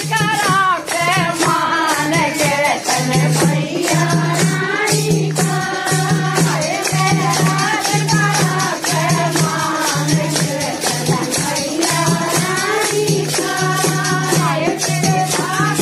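Hindu devotional song (bhajan) with singing voices over a fast, steady jingle of hand percussion and a pulsing low beat.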